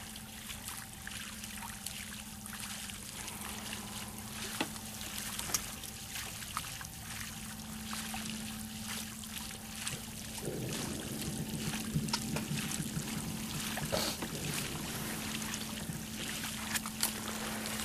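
Water trickling and lapping, with scattered light clicks and a faint steady hum; a rougher, lower stretch comes in about ten seconds in.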